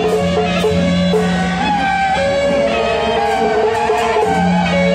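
Traditional temple-procession music: a wavering melody over a held low tone, with percussion strikes about twice a second.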